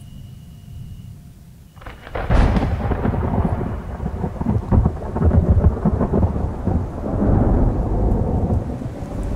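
Thunder: a low rumble builds, then a sharp crack about two seconds in, followed by a long, loud rolling rumble that swells and ebbs.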